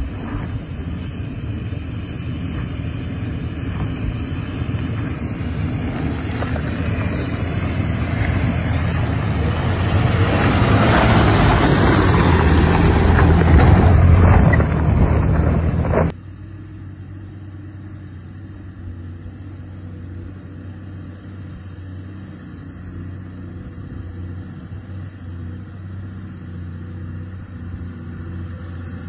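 Toyota Prado 4WD engine working up a loose dirt climb, its tyres churning the soil, growing steadily louder as the vehicle comes up close. About two-thirds of the way through, the sound cuts off sharply to a quieter, steady engine note from a second 4WD further down the track.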